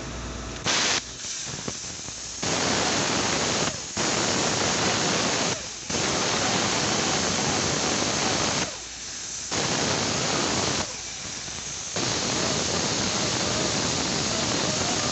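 A loud hissing jet switched on and off in repeated bursts, each lasting one to three seconds, with short gaps between them.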